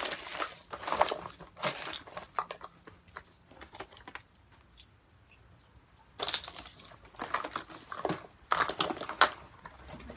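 Rustling and crinkling as gloved hands rummage through a reusable tote bag and the items inside it, in irregular clusters of rustles and small clicks. There is a quiet pause of a few seconds in the middle.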